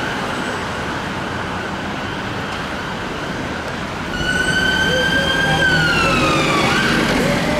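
Ambulance siren on a Mercedes Sprinter ambulance, faint over street traffic at first. About four seconds in it comes in loud: one long high wail that holds, then slides down, and starts again near the end.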